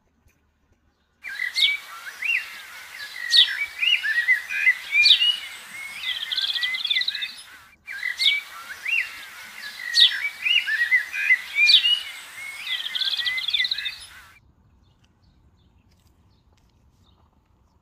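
Several birds chirping and singing, with quick rising calls and a trill. The same six-second stretch of birdsong plays twice in a row, a looped recording that starts about a second in and stops about two-thirds of the way through.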